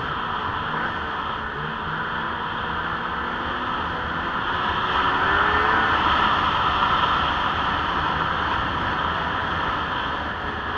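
Lynx 700 snowmobile running along a trail, its engine note rising about halfway through and then easing off, under a steady rushing noise.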